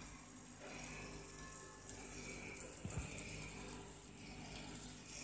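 Faint sizzle of a raw paratha cooking on a hot, ghee-greased non-stick tawa, a steady soft hiss with light crackling.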